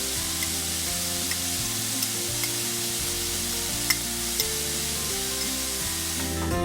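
Food sizzling steadily in a frying pan, with a few light clicks of a utensil against the pan. Soft background music plays underneath.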